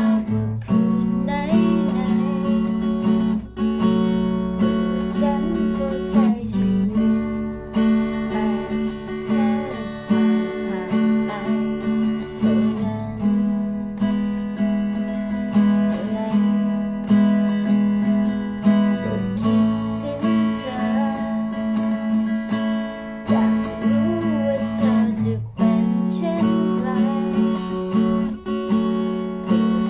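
Acoustic guitar strumming the chords of a song, steadily, with no break.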